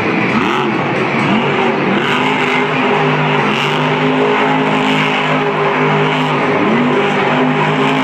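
Monster truck's supercharged V8 revving up and down again and again as it drives around, with a steadier stretch in the middle, over loud arena crowd noise.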